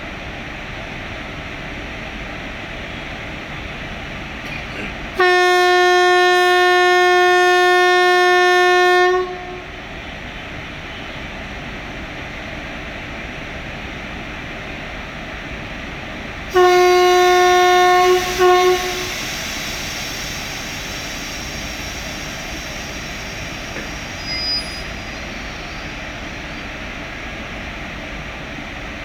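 WCAM-3 electric locomotive's air horn sounding one long blast of about four seconds. Some seven seconds later it gives a shorter blast that breaks into two quick toots at the end, over a steady rushing noise.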